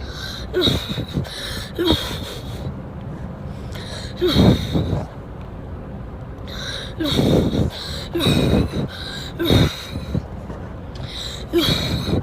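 Repeated coughing from a habit cough, a chronic cough with no physical cause. There are about seven short coughs, one to three seconds apart, some in quick pairs.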